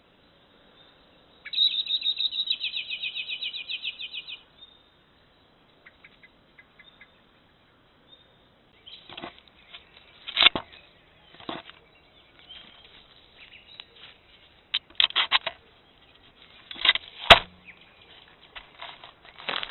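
A fast, slightly falling trill lasting about three seconds, then rustling in dry twigs and scattered scrapes and knocks close to the microphone as a red fox cub brushes up against the trail camera, with one sharp click near the end.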